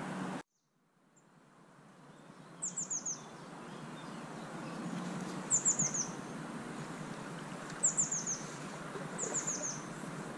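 A small songbird calling four times, each call a quick run of about four high chirps falling slightly in pitch, over the steady rush of river water. The sound drops out completely about half a second in and fades back up over the next second or two.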